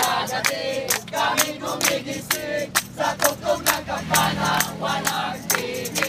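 A group of people singing together while clapping their hands in time, about three claps a second.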